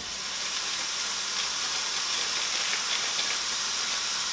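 Lean ground beef sizzling steadily in a preheated pan as it starts to brown.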